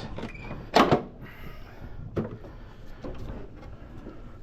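Handling knocks from parts of a Go Chair power wheelchair being moved: one sharp clack about a second in, a lighter knock a little later, and small clicks and rustling between them.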